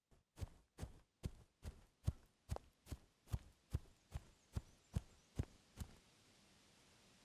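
Footsteps on dry, grassy ground: about fourteen even steps at a brisk pace, stopping about six seconds in, after which only a faint outdoor hiss remains.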